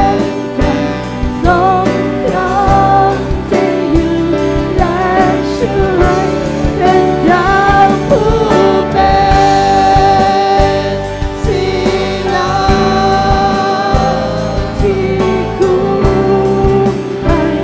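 Live worship band: a group of male and female vocalists singing a slow worship song together over drums, bass guitar and acoustic guitar, with a steady drum beat.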